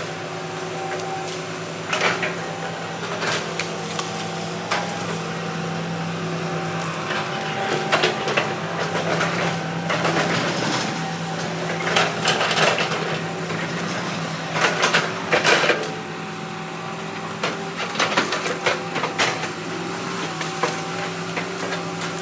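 Heavy earthmoving machine's diesel engine running steadily, with repeated sharp knocks and cracks, several clustered around the middle, as wood is struck and broken.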